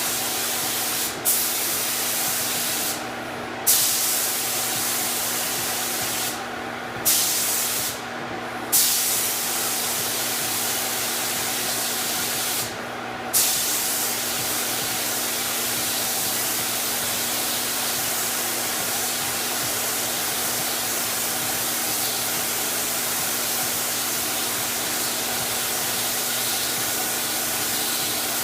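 Compressed-air paint spray gun spraying epoxy primer, heard right at the gun: a loud, steady hiss cut briefly about five times in the first half as the trigger is let off between passes, each restart coming back with a burst of louder hiss. A low steady hum runs underneath. The gun was sputtering badly through this coat, which the owner puts down to a missing cap and a missing part in the gun.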